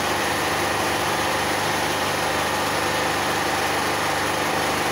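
Steady, unchanging engine drone with a faint constant hum running under it.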